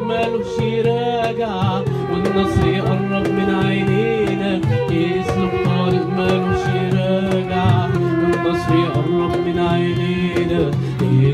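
Small acoustic ensemble playing a song live: clarinet, violin, flute and guitar carrying sustained, wavering melodic lines over steady darbouka strokes, with a man singing.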